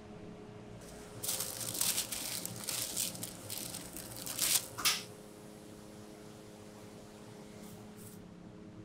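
Thin plastic sheet crinkling as soft discs of pineapple-bun crust dough are peeled off it, starting about a second in and stopping near five seconds. A steady low hum runs underneath.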